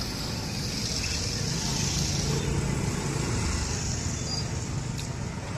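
Road traffic: motor vehicle engines running close by, a steady low noise with a hiss over it that swells a little in the middle.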